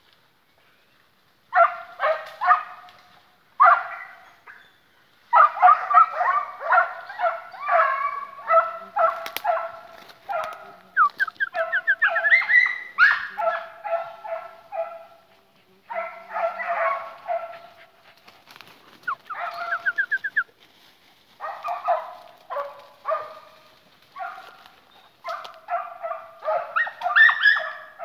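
Hounds, an American Foxhound and a veadeiro deer hound, baying in repeated bouts of rapid calls with short pauses, the sign that they are on the scent, working to raise a deer.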